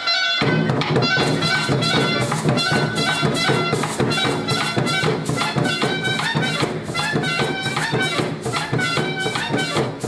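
Recorded dance music with a steady beat played over loudspeakers, starting about half a second in after a brief pause.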